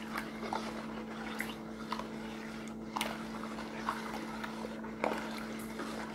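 Plastic stirring stick swishing through foamy soapy water in a plastic basin, with light clicks every second or so as it knocks the basin. A steady low hum sounds underneath.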